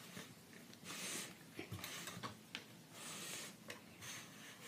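Faint handling noise from a Lego brick model being turned by hand on a paper mat: soft sliding and rustling with a few light clicks.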